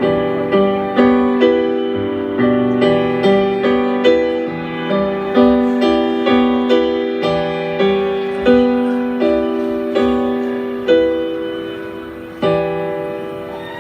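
Piano playing a slow melody of single notes and chords, about two to three a second, each one ringing out, with a longer held chord near the end.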